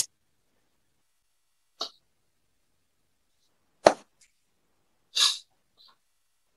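Mostly silence on a video call, broken by three brief noises: a faint puff about two seconds in, a sharp click about four seconds in, and a short breathy burst a second later.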